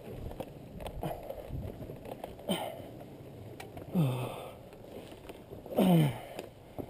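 A man breathing hard, with two loud grunts that fall in pitch about four and six seconds in, the strain of heaving up a heavy fallen dirt bike.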